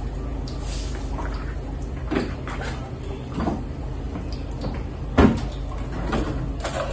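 Kitchen handling sounds: salt poured into a plastic tub at the start, then a few short knocks and clatters of containers and cupboard doors being handled at the counter, the loudest a little past the middle, over a steady low hum.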